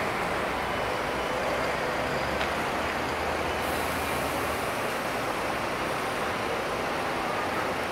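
MAN NL323F Lion's City single-deck diesel bus idling at a stop, a steady engine noise; a low hum under it weakens about three and a half seconds in.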